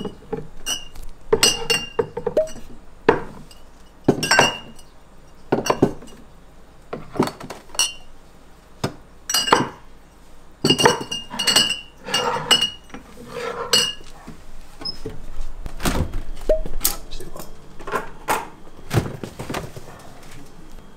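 Glassware clinking and knocking as it is handled and set down during bar opening prep: irregular clinks, a few ringing briefly, with duller knocks between.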